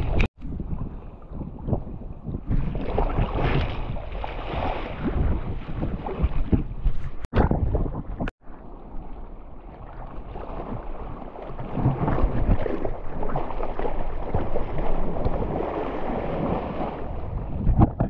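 Sea water sloshing and splashing with wind on the microphone, a rough, churning noise. It cuts out to silence for a moment three times: near the start, and twice about halfway through.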